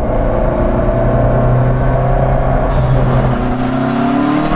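Lancia Delta Integrale's turbocharged four-cylinder engine pulling at a steady note under load. It climbs in pitch over the last second as the car accelerates, with rising road and wind noise.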